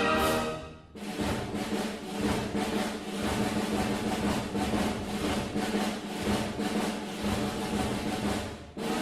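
Orchestral music: the chords break off about a second in, and a sustained drum roll follows over a held low note. A new brass chord enters just before the end.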